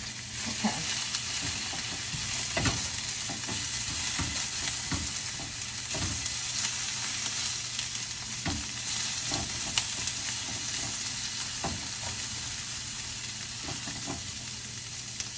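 Sliced onions sizzling in avocado oil in a stainless steel sauté pan over medium-high heat: a steady frying hiss, with a spatula scraping and knocking against the pan now and then as they are stirred.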